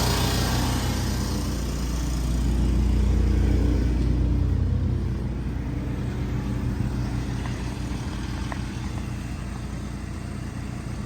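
Truck engine and road noise while driving, a steady low hum that grows louder about two to four seconds in and then eases off.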